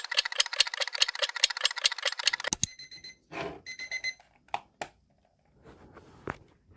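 Digital alarm clock beeping in a fast, even series, about five beeps a second, until it is switched off suddenly about two and a half seconds in; a few soft rustles and clicks follow.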